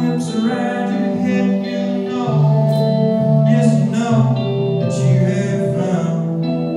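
Live performance of a song: a man singing while playing guitar.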